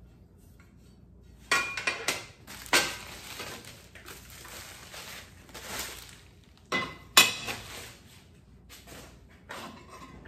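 Heavy steel bandsaw-stand plates clanking against each other and onto a workbench as they are unpacked, with packing paper rustling between the knocks. There are three sharp clanks in the first three seconds and two more, the loudest, about seven seconds in.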